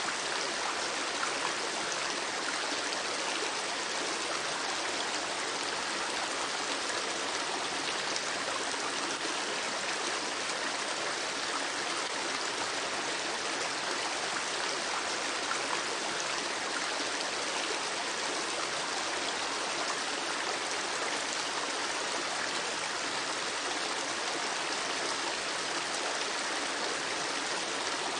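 Running water flowing steadily, an even rushing noise that holds unchanged throughout.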